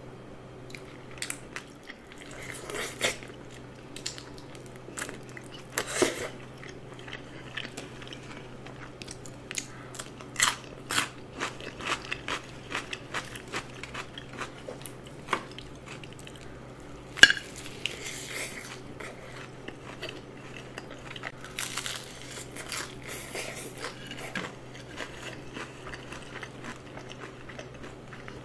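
Close-miked crunching and chewing of crispy seasoned fried chicken drumsticks: irregular crisp bites and crackles, with one sharp loud crunch about midway, over a faint steady low hum.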